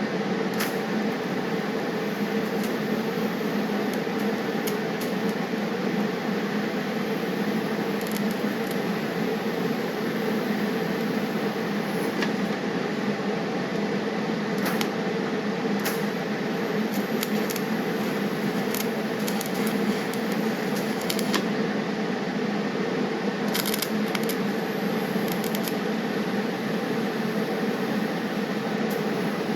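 TIG welder arc running steadily for the whole stretch: an even buzzing hiss with faint scattered ticks.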